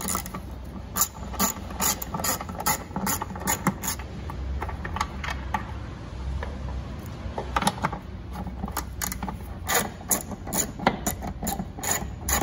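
Hand ratchet with an 8 mm socket on an extension clicking in quick runs as it backs out the screws holding a tail light, with a quieter stretch of about three seconds in the middle.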